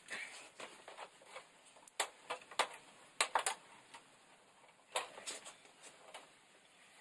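Irregular sharp clicks and snaps of the clips on an LED TV's inner bezel as it is worked loose around its edge to free the diffuser sheets.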